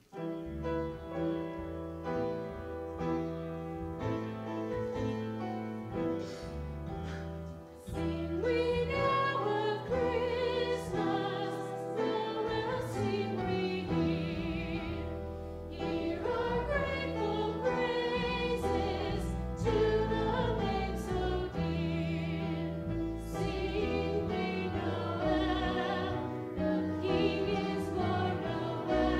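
A song with instrumental accompaniment. The accompaniment starts at once, and a singing voice with vibrato comes in about eight seconds in, making the music louder.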